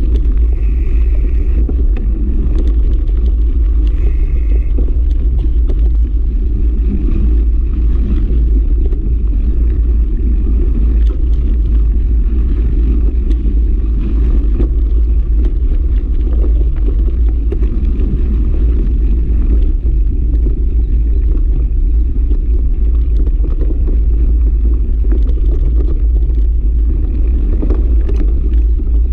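Mountain bike ridden over loose gravel and packed sand, heard as a steady low rumble of wind buffeting and tyre noise on a camera mounted on the bike.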